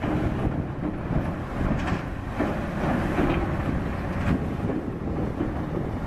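Caterpillar 320D excavator working, its bucket scraping and breaking into a wall of packed snow with a few sharper crunches about two and four seconds in, over wind noise on the microphone.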